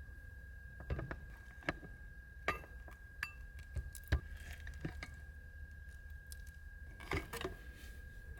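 Scattered light clinks and knocks of small hard objects being handled, with a cluster near the end, over a steady faint high-pitched tone and a low rumble.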